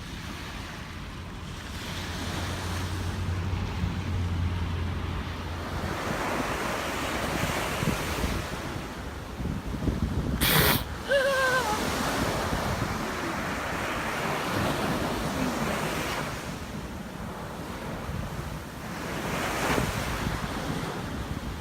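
Surf washing on the shore with wind on the microphone; about halfway through, a Hawaiian monk seal sneezes once, a short sharp burst, followed by a brief wavering pitched sound.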